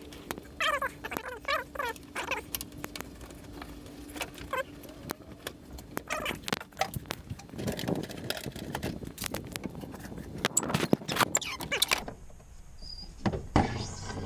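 Air suspension line and wiring being handled and pulled through a car's trunk: rustling, clicks and light clatter. A few high, whining cries from an animal come in the first few seconds.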